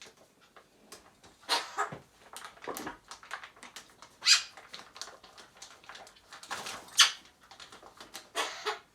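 Pet Eurasian magpie giving short harsh cough-like bursts, its imitation of a cough, with the loudest about four and seven seconds in. Light clicks and taps come between the bursts.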